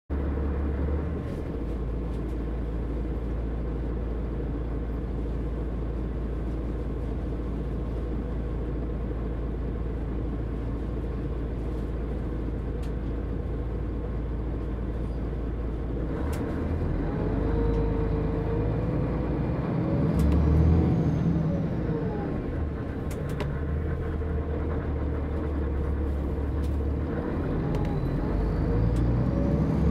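Diesel engine of a Setra S 315 UL city bus with a manual gearbox idling steadily, then revving up and dropping back several times from about halfway through as the bus pulls away and works through its gears.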